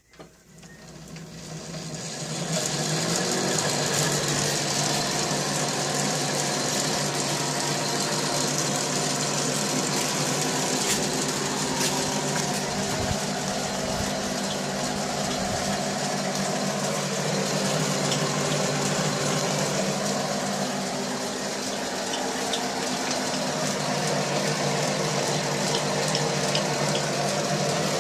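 Lathe spindle driven by a treadmill DC motor on a homemade speed controller, spinning up over the first couple of seconds and then running steadily with a hum and a broad whirr.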